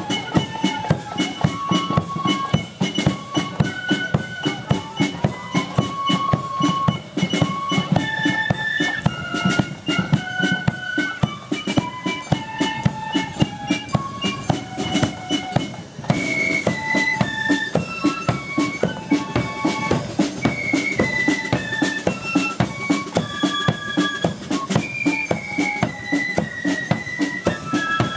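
Marching flute band playing a tune: massed flutes carry a high melody over drums beating a steady march rhythm.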